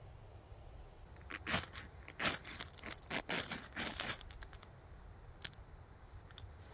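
Ferrocerium rod scraped hard with a metal striker: a quick run of a dozen or more rasping strokes over about three seconds, throwing sparks onto a tinder bundle to light a fire. A single click follows.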